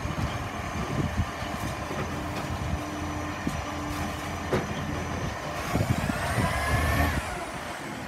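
Dennis side-loader garbage truck's diesel engine running as it works at the kerb, with a rising whine as it revs and pulls forward about six seconds in, falling away just after.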